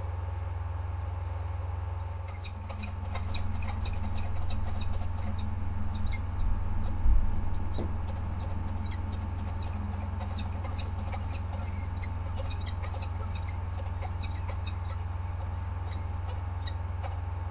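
Peregrine falcons calling in short, sharp chittering notes, several a second, from about two seconds in, loudest in the first half. A steady low electrical hum from the camera's microphone runs underneath.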